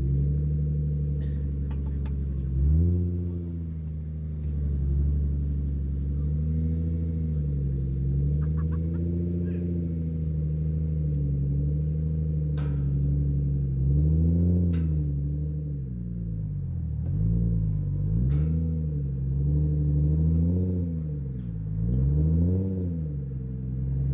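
Nissan Skyline R33's engine running at low speed, with the revs rising and falling repeatedly as the car is eased up the ramps onto a car-carrier trailer. A few short knocks are heard.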